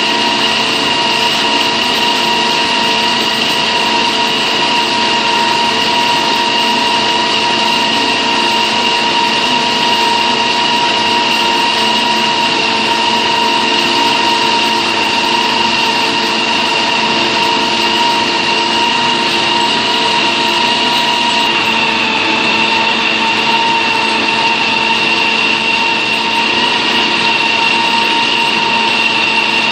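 HFU-3A hydraulic underground drilling rig running steadily while drilling: a loud, even mechanical din with a steady high whine, dipping slightly in pitch about two-thirds of the way through.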